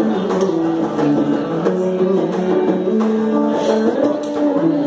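Live Indian music: a plucked string instrument playing a slow melody of held notes that step up and down in pitch.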